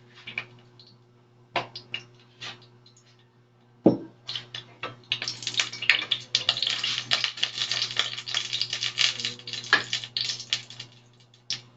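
A single knock about four seconds in, then cooking oil crackling and spitting in a hot pan for about five seconds before dying down. A faint low steady hum runs underneath.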